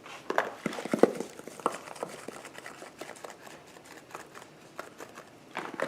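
A run of small, irregular clicks and taps from kitchen items being handled, thickest in the first couple of seconds and thinning out after.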